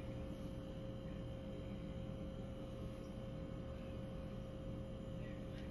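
Steady background hum with a faint, even tone over it; nothing else happens.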